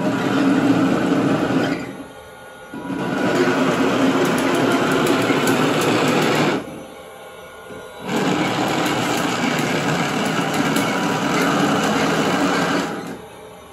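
A 3D-printed 1/9-scale RC M1A2 Abrams tank's electric drive motors and gearboxes whirring as its plastic tracks run on a wooden floor, in three runs of a few seconds each with short pauses between.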